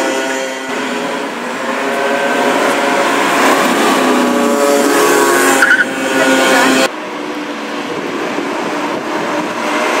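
Car engines running hard as cars pass at speed, with a sudden cut a little under seven seconds in.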